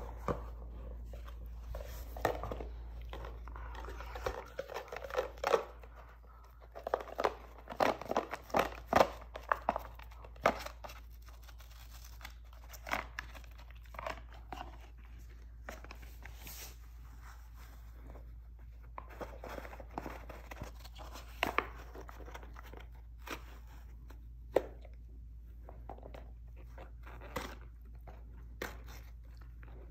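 Basset hound chewing and tearing an empty cardboard paper towel tube: irregular crunches and rips of the cardboard. They come thick and fast in the first ten seconds or so, then more sparsely.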